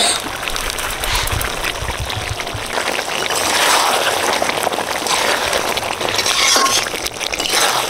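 Chicken curry bubbling and sizzling in a large metal pot, a steady hiss that swells twice, as crushed Cheetos are shaken in and stirred with a metal ladle.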